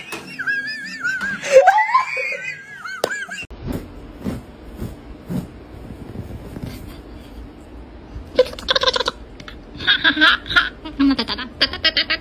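High, wavering vocal cries for the first few seconds, then, after a cut, a steady low hum with repeated bursts of laughter from about eight seconds in.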